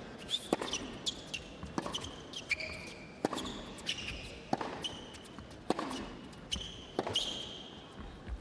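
Tennis rally: a string of sharp ball hits and bounces, one every half second to a second, with shoes squeaking on the court between them.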